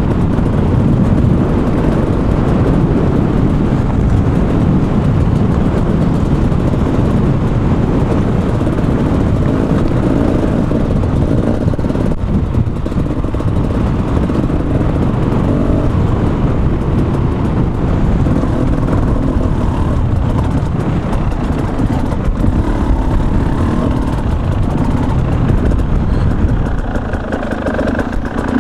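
KTM 300 EXC's single-cylinder two-stroke engine running under way, with wind rushing over the microphone as the bike is ridden; the noise eases off near the end.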